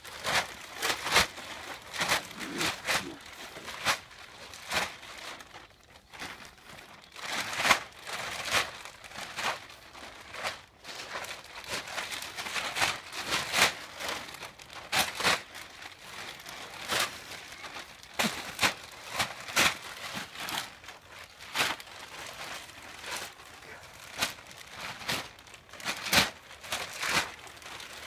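A bag crinkling and rustling in irregular bursts as a horse plays with it.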